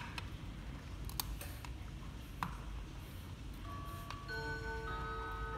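Light clicks and taps as a clock's brass pendulum bob and a small metal tool are handled on a workbench, the sharpest click right at the start. From about three and a half seconds in, several soft sustained musical notes come in one after another and keep sounding.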